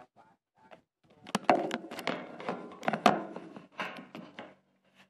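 Handling noise: a hand knocking and rubbing on the phone right over its microphone, a quick run of sharp thunks and scrapes.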